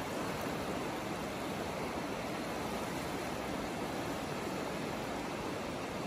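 Small sea waves washing over shallow sand at the shoreline, a steady, even hiss of surf with no distinct breaks.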